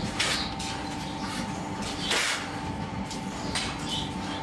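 A shovel scrapes up dark foundry moulding sand and tips it into a steel casting flask, in a few short scraping rushes. The loudest rush of sand comes about two seconds in.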